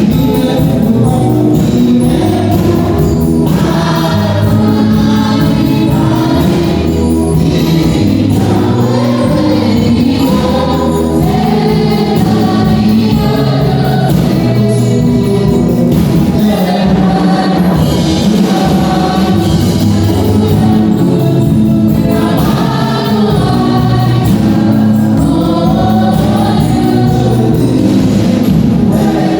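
A choir singing a gospel song, continuous throughout.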